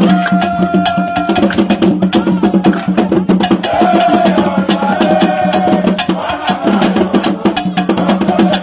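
Music with fast, busy percussion of wood-block-like clicks over a steady low note, and a melody line that comes and goes.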